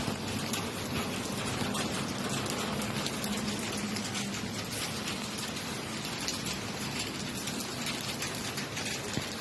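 Steady rain falling, with many small, sharp drop ticks over an even hiss.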